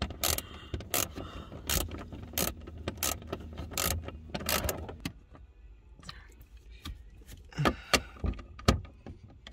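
Hand ratchet with socket tightening a nut on a dashboard mounting stud, its pawl clicking on each back-stroke: about two clicks a second for the first five seconds, then a pause and a few more clicks near the end as the nut is snugged down.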